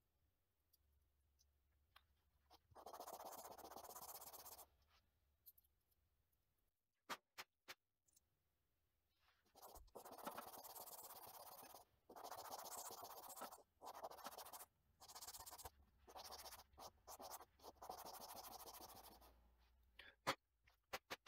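A small resin casting rubbed back and forth on sandpaper on a wooden sanding block: a scratchy rasping in several stretches of a second or more each, with small clicks and taps between as the part is lifted and turned. The surplus casting material on the back of the part is being sanded paper-thin until it breaks through.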